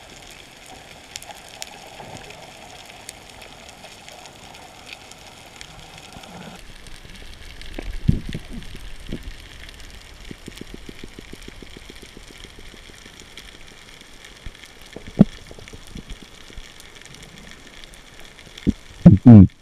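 Underwater ambience heard through a diver's camera: a steady hiss with scattered crackles and clicks, a low swelling thump about 8 seconds in and a quick run of clicks a couple of seconds later. Loud, deep pulses begin just before the end.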